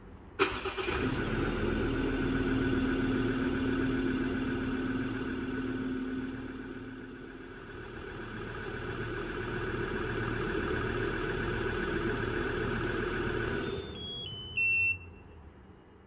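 Ford Ranger pickup's engine starting about half a second in and idling steadily, then shutting off near the end, followed by a short run of electronic beeps stepping down in pitch.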